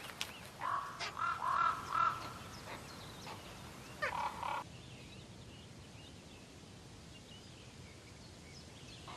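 Raven nestlings giving harsh, rasping begging calls: a quick run of calls in the first couple of seconds and another about four seconds in, then quiet.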